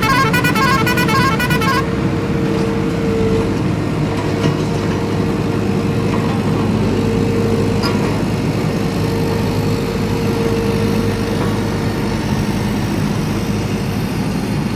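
A toy vehicle's warbling electronic horn sounds for about the first two seconds, over a steady whirring motor hum that runs on.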